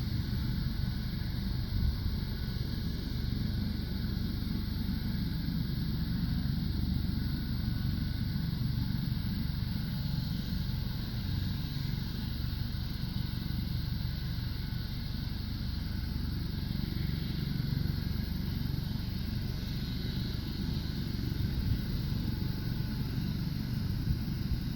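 U.S. Coast Guard helicopter running steadily: rotor and turbine engine noise, a low pulsing rumble with a faint steady whine above it.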